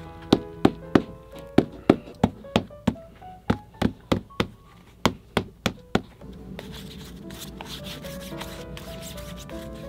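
A shoemaker's hammer taps a leather sole piece on a boot about sixteen times, in quick groups of three or four, roughly three strikes a second. From about six seconds in, the strikes stop and a glue brush rubs steadily along the sole's edge. Background music plays throughout.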